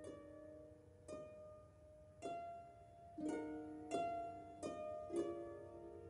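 Background music of slow plucked-string notes, struck roughly once a second, each ringing and fading.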